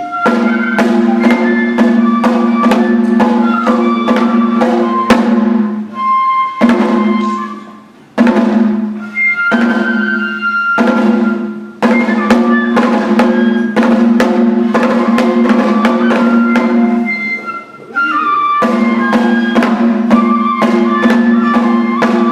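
Japanese kagura festival music: a bamboo flute plays a melody over a quick, steady beat of drum strikes, pausing briefly several times.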